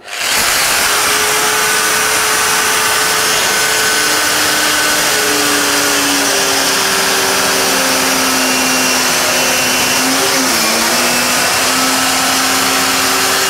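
Westfalia 500 W mini plunge-cut circular saw running at high speed and cutting through laminate flooring. A loud, steady motor whine that comes up quickly at the start, its pitch dropping slightly partway through and dipping briefly about ten seconds in.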